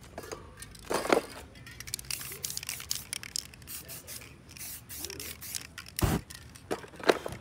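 Hands scraping, rubbing and tapping on a sheet of spray-painted paper, with spray cans knocking down onto it. About six seconds in comes a short, deep whoosh as spray-paint aerosol is ignited into a burst of flame over the painting.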